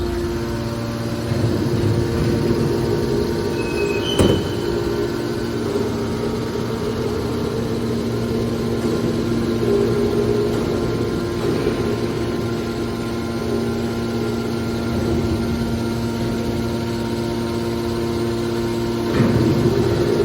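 Hydraulic metal shear baler running with a steady machine hum. A single sharp bang comes about four seconds in, and a louder rush of noise comes near the end.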